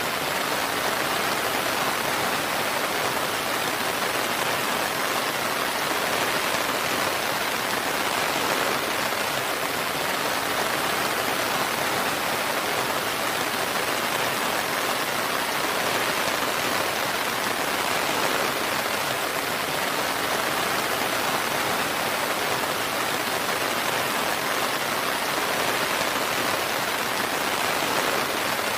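Steady rain falling, an even hiss of dense drops with no thunder or change in intensity.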